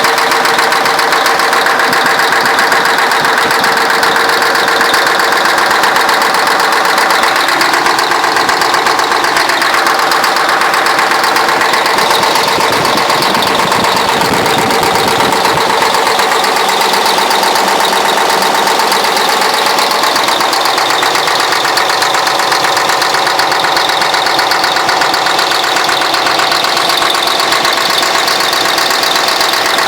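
YaMZ-6581.10 V8 turbo-diesel engine running steadily with a knock whose cause the owner cannot make out.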